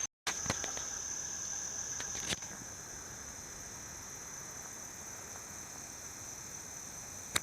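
Crickets droning steadily at one high, even pitch, with a couple of faint clicks, one about two seconds in. The sound drops out for a moment right at the start.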